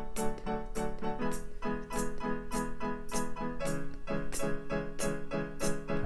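Yamaha electronic keyboard playing a steady pattern of short, repeated piano-voiced notes and chords, about three a second.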